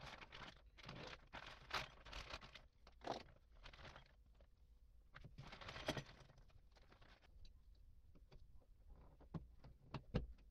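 Clear plastic bag crinkling as it is opened and handled, in quiet irregular rustles. Near the end, two small sharp clicks as a screwdriver works the spring on a starter motor's brush-holder plate.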